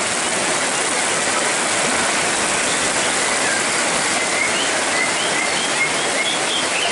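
Heavy rain pouring down steadily. Faint short bird chirps sound over it, more often in the second half.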